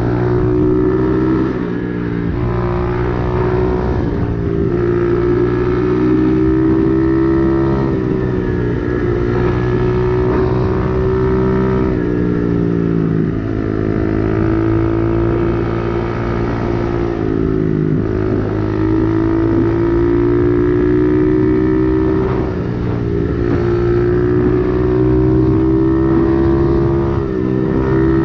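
125cc dirt bike's single-cylinder engine running at road cruising speed, its pitch dipping and climbing back several times as the revs change.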